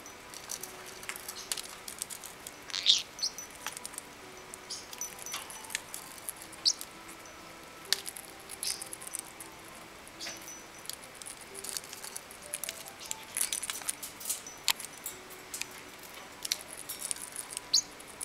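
Small parrots eating bread: scattered soft clicks and crackles of beaks nibbling and feet shifting on the perches, with three short high chirps, the loudest about three seconds in.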